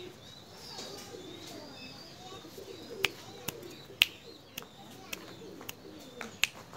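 Domestic pigeons cooing softly, with faint high chirps. About three seconds in a series of sharp clicks starts, about eight in all, louder than the cooing.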